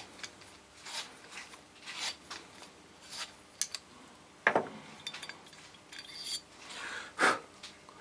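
Hand valve-seat cutter scraping round the small valve seat of a 139QMB moped cylinder head, touching up the 30° top chamfer. It goes in short scraping strokes about once a second, the loudest near the end.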